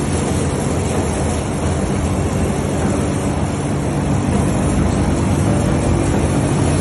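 Steady machinery rumble with a constant low drone during a concrete pour down a chute, growing slightly louder toward the end.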